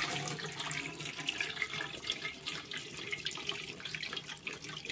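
Liquid trickling and splashing from a cloth bag of wet ground paste into an aluminium bowl, a steady stream as the water is strained out.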